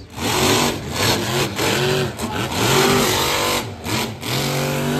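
Monster truck engines revving hard in repeated surges, the pitch climbing and falling several times, then held at a steady high rev for over a second near the end.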